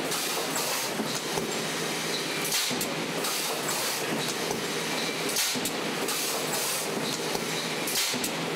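Industrial plastics-processing machinery running steadily, with a short burst of noise recurring about every two and a half to three seconds, like a machine working in cycles.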